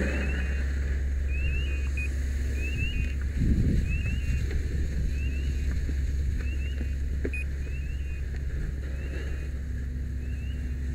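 A fire hose stream spraying water onto a burning structure over the steady low drone of a fire engine running its pump, with a brief louder rush about three and a half seconds in. Faint, short, high chirps repeat about once a second.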